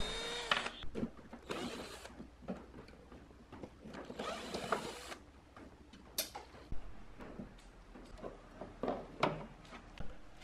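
Cordless drill-driver backing screws out of a power amplifier's metal rear panel in three short runs, the first winding down in pitch as it stops. Later come scattered knocks and rattles as the loosened panel and a cooling fan are handled.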